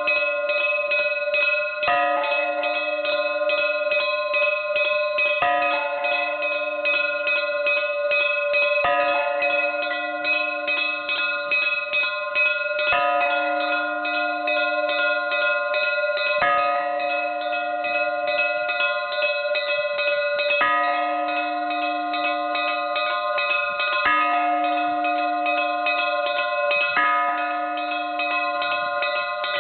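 Russian Orthodox church bells ringing a festive peal. Small bells chime rapidly and without a break over a deeper bell that is struck about every three to four seconds.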